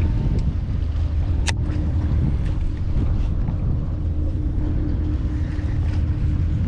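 A boat's motor running steadily, with a sharp click about one and a half seconds in.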